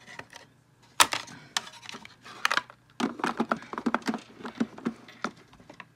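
Makeup containers and cases being handled: a sharp click about a second in, another a little later, then a quick run of small clicks and clatters.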